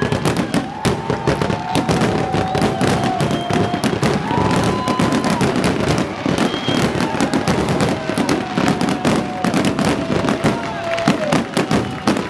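Fireworks display: a dense, continuous barrage of bangs and crackling from bursting shells, with several drawn-out tones over it that each last about a second and glide slightly downward.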